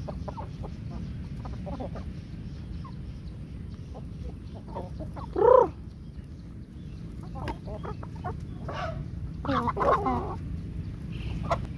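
A flock of chickens and roosters clucking as they forage, with short calls scattered throughout. One loud call comes about halfway through and a quick run of loud calls near the end, over a steady low rumble.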